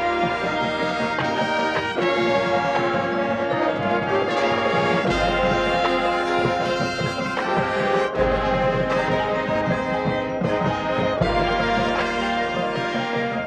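High school marching band playing, its brass section holding full chords that change every second or two.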